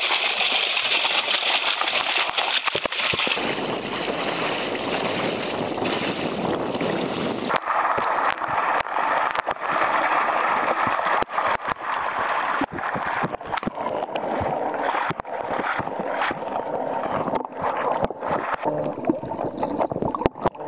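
Water splashing and gushing as live amago are tipped from a bucket and then flushed out of a release hose into a shallow river, full of sharp splashes and gurgling. The sound changes abruptly about seven and a half seconds in.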